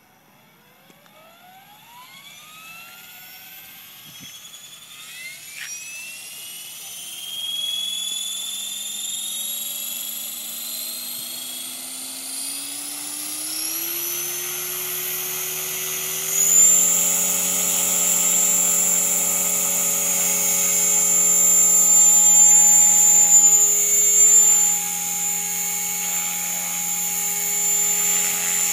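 Align T-Rex 500 electric RC helicopter spooling up. Its motor and gear whine climbs steadily in pitch for about sixteen seconds as the rotor comes up to speed, then holds a steady high whine. Near the end the loudness swells and dips as the helicopter lifts off.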